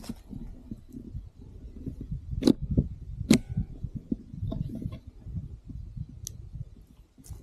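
Handling noise from a pistol being fitted into a strap-on stock: a low rumble with two sharp clicks about a second apart and a couple of fainter clicks near the end.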